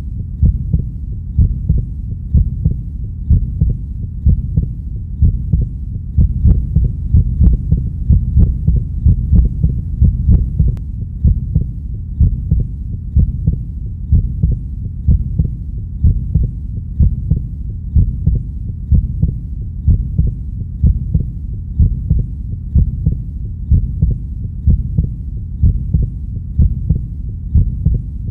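Recorded heartbeat: a steady, regular pulse of low, muffled thuds that keeps an even pace throughout.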